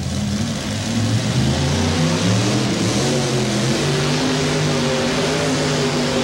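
Supercharged mini rod pulling tractor's engine revving up about a second in as the tractor launches, then running hard at high revs, pulling the sled.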